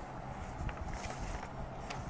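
Sheets of paper being lifted and turned over on a desk: faint rustling with a few light handling clicks.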